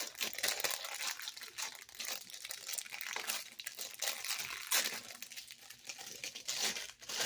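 Crinkly wrapping being handled and torn open, with an irregular run of crackles and rustles as a new fidget toy is unpacked.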